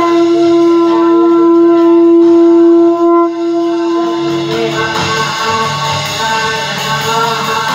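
Conch shell (shankh) blown into a microphone. It sounds one long steady note for about three seconds, breaks briefly, and holds on more softly until about five seconds in, over a sustained musical backing.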